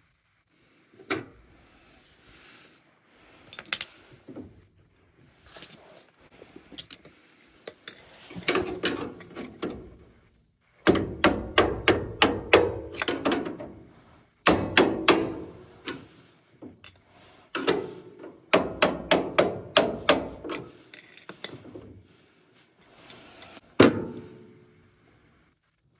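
Hand-tool work on a gas furnace: single sharp strikes and bursts of rapid knocking and clattering, several hits a second, loudest in the middle stretch.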